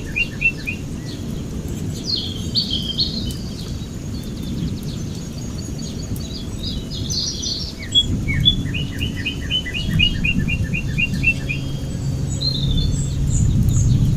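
Several birds chirping and calling outdoors: rapid runs of short chirps at the start and again from about 8 to 11 seconds in, with higher calls in between, over a steady low background rumble, and a low hum joining near the end.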